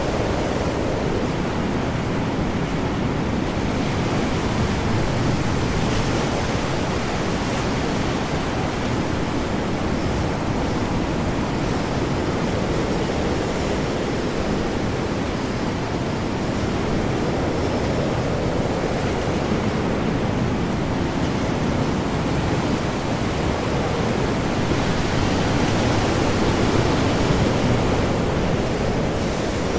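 Ocean storm: heavy, large waves and high wind together as a dense, steady rush of noise that swells and eases slowly.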